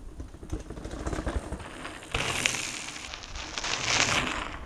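Mountain bike coming down a flight of steps with a run of knocks and thuds, then its knobby tyres crunching over gravel, the crackle starting suddenly about two seconds in, growing louder as the bike passes close by and cutting off near the end.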